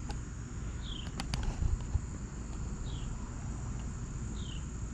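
Steady high-pitched insect chorus, with a short falling chirp repeating every second or two. A few sharp clicks sound about a second in.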